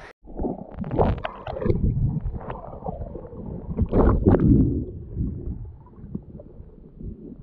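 Muffled underwater water noise as a handheld action camera goes under in a river: water rushing and churning around the submerged camera with the swimmer's movement. It turns muffled just after the start, with louder surges about a second in and about four seconds in.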